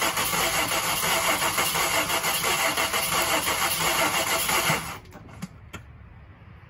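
Starter motor cranking the VW engine while a removed spark plug lies grounded on the metal to check its spark, which is weak. The cranking cuts off suddenly about five seconds in, followed by two faint clicks.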